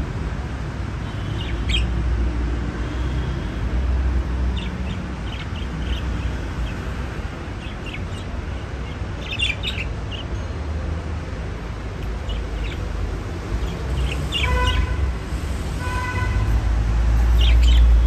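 Caged budgerigars chirping in short, scattered chirps, with two fuller calls near the end, over a steady low rumble.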